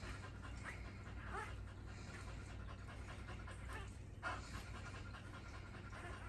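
Dog panting softly, typical of a bitch in labour while whelping, with a few faint short squeaks.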